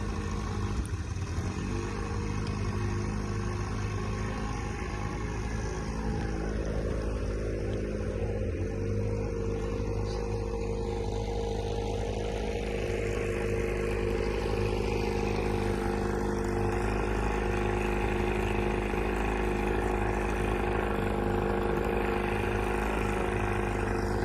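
Boat's diesel engine running steadily, with an even, unbroken drone.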